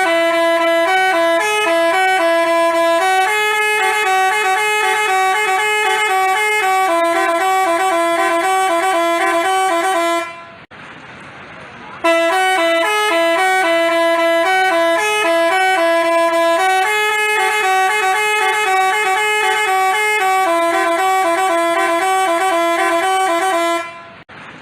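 Basuri 'telolet' multi-tone bus horn playing a tune of held, stepping notes. About ten seconds in it breaks off briefly, then plays the same tune again, stopping near the end.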